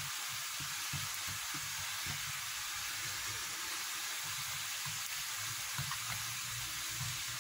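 Steady background hiss with faint, soft, irregular sounds of hands pressing and spreading oiled dough thin on a wooden table.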